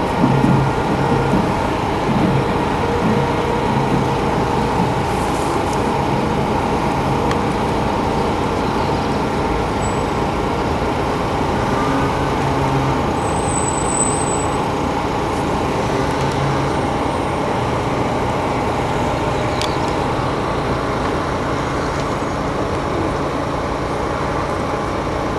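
Steady hum of road traffic with a motor vehicle engine running, even and unbroken.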